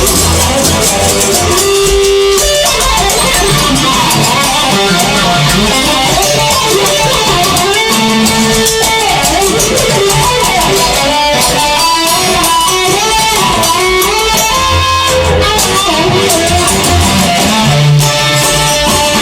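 Rock music: an instrumental guitar break, with electric guitar lead lines over bass and drums.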